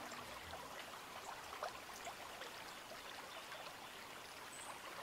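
Faint trickling, water-like noise with many small scattered crackles.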